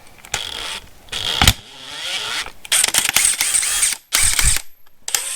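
Irregular clicks, rattles and handling clunks from a chrome socket and cordless impact wrench being handled, with one sharp knock about a second and a half in.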